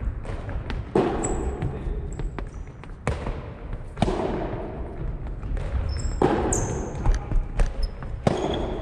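Soft tennis rally: sharp hits of the soft rubber ball on racket strings and bounces on the wooden gym floor, about every one to three seconds, each echoing in the large hall, with short high squeaks of shoes on the floor between the hits.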